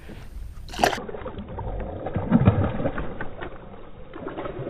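A small largemouth bass splashing and thrashing at the water's surface beside the boat, with scattered ticks and knocks, loudest about halfway through.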